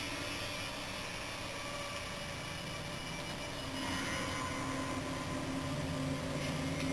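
A steady low drone with hiss, a film's ambient soundtrack heard through a television's speaker, growing slightly louder about four seconds in.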